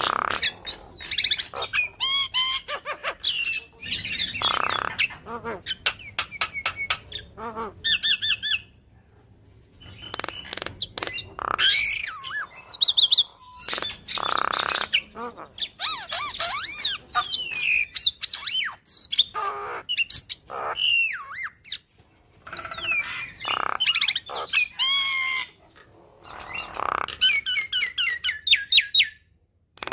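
Javan myna singing a varied, chattering song of whistles, harsh squawks and rapid clicking runs, in phrases broken by brief pauses.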